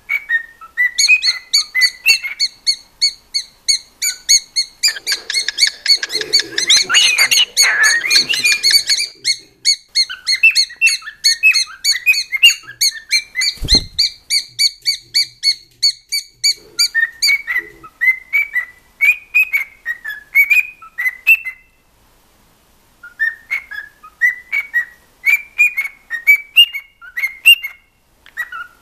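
Cockatiel whistling and chirping a fast run of short, clear notes, with a pause of about a second and a half near the end.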